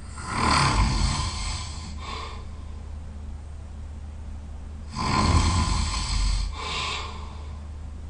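A person snoring loudly: two snores about five seconds apart, each a long loud breath followed by a shorter, softer one. A steady low hum runs underneath.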